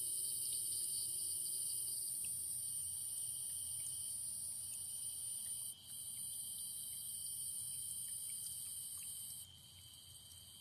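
Night insects trilling in a steady high-pitched chorus, several pitches layered at once; the highest pitch briefly dips about halfway through and drops out abruptly near the end. Underneath, a faint pattering of the small fountain jet falling back into its basin.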